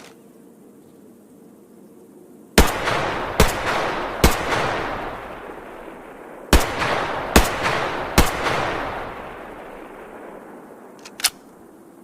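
H&K MP5 submachine gun firing single shots: two groups of three, each shot under a second apart, every report trailing off in a long echo. A couple of faint clicks near the end.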